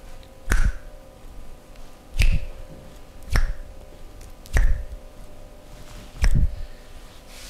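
Five firm slaps of a hand on a person's body during a massage, about a second or two apart, each a sharp smack with a dull thump under it.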